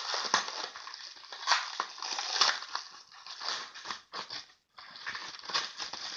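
Packaging being torn open and crumpled by hand: irregular crinkling and crackling of a tightly wrapped, taped item being unwrapped.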